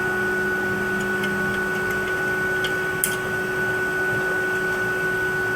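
Steady hum and hiss with a constant high whine, and a few faint clicks about a second in and around three seconds in.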